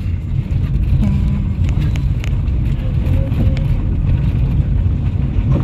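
A vehicle driving along a road: a steady low rumble of engine and road noise, with some wind noise.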